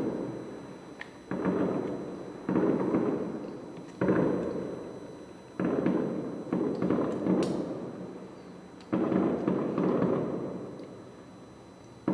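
Fireworks shells bursting about 1.3 km away: a series of about seven sudden dull booms, each rolling away over a second or two, a few seconds apart.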